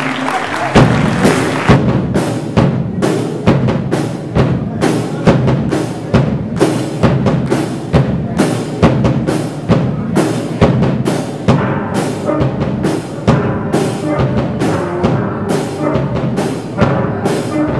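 Steel pan band playing with a drum kit: ringing pitched strokes on the pans over a steady beat, growing into sharp regular hits about a second in.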